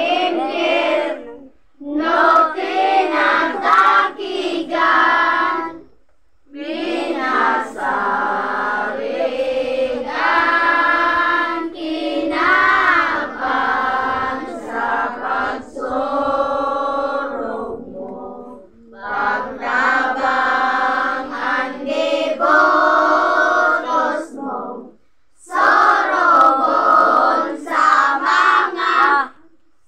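A group of children and women singing a devotional hymn together in unison. The hymn goes in sung lines of several seconds each, broken by short pauses for breath.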